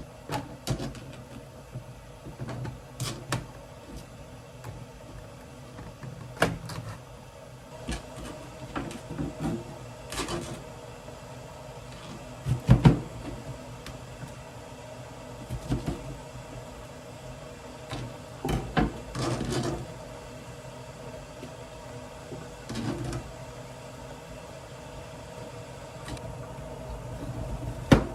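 Kitchen handling sounds: scattered knocks and clatters of dishes, utensils and cupboard doors over a steady low hum, the loudest knock about halfway through.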